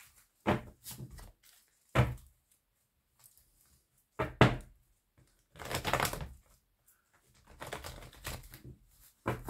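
A deck of oracle cards shuffled by hand: short, irregular bursts of cards sliding and slapping together, with a few sharper knocks among them.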